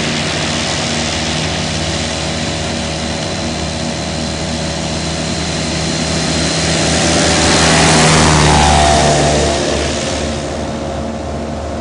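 Single-engine light propeller aircraft at full takeoff power, a steady engine-and-propeller drone. It swells to its loudest about eight seconds in as the aircraft passes close by, then its pitch drops as it moves away.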